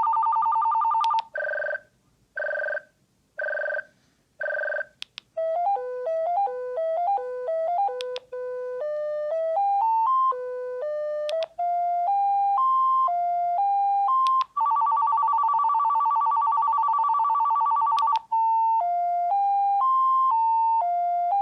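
AT&T DLP73510 cordless telephone ringing through several of its electronic ringer tones in turn. First a steady two-tone warble, then four short beeping rings, then a melody of quick single beeped notes stepping up and down. Another steady warble runs for a few seconds in the middle, followed by a second beeped melody.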